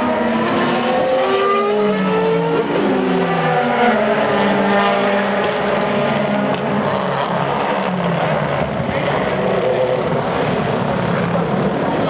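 DTM touring cars' 4.0-litre V8 racing engines, several at once, their pitch rising and falling as they downshift and accelerate through a corner; one note drops sharply about two and a half seconds in.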